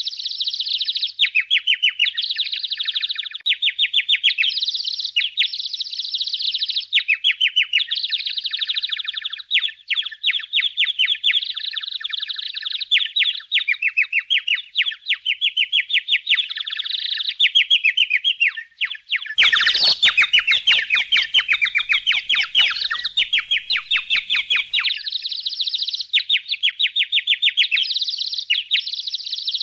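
Budgies chattering: continuous, rapid warbling and chirping from several birds. About two-thirds of the way through, a few seconds of clicking and rustling noise join in under the chirps.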